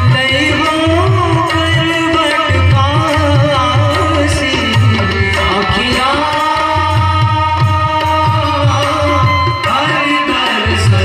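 A Ramayan mandali performing devotional music: a sung melody carried over harmonium, with hand drums keeping a steady beat.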